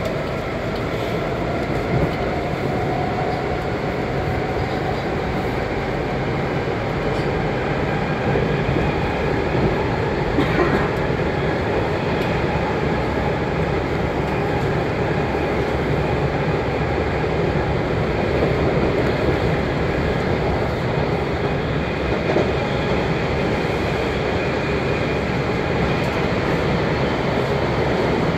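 Steady running noise from inside a moving Washington Metro 7000-series railcar: the rumble and hiss of wheels on rail at speed, with a faint motor whine that rises slightly in pitch over the first few seconds.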